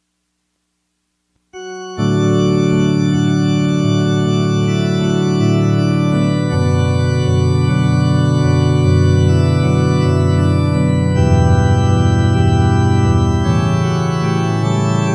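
Silence, then organ music starts about a second and a half in: held chords that change every few seconds.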